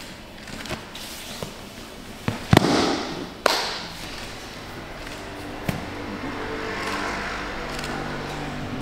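Bodies rolling onto a padded grappling mat: a few sharp slaps and thuds, the loudest about two and a half seconds in, followed by a short scuff of skin and clothing sliding on the mat.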